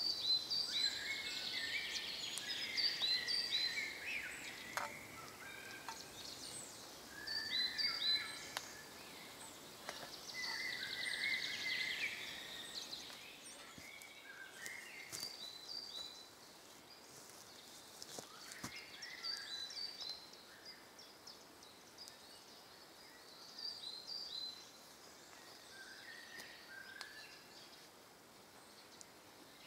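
Woodland songbirds singing, several overlapping songs of short high chirps and trills, busiest and loudest in the first half and sparser later. A few faint clicks here and there.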